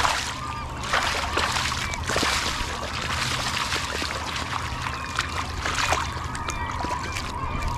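A salmon thrashing in shallow water as a hand grabs at it, with repeated splashes and sloshing throughout.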